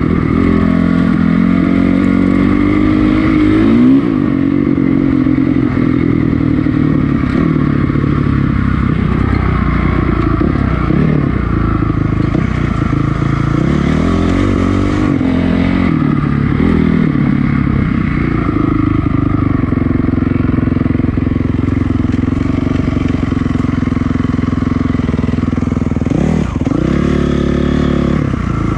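2006 Honda CRF450R's single-cylinder four-stroke engine running under riding load. Its pitch rises and falls as the throttle is opened and closed, with sharper revs a few seconds in, in the middle and near the end.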